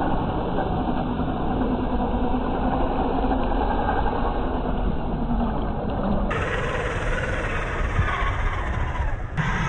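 Scale RC crawler's brushed 540 electric motor and drivetrain running while its tyres churn and splash through shallow water and mud. The sound changes abruptly twice, about six seconds in and near the end.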